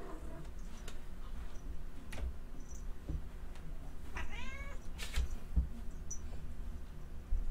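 A domestic cat meows once, a short call that rises and falls, a little past the middle. Scattered soft thumps and taps come before and after it.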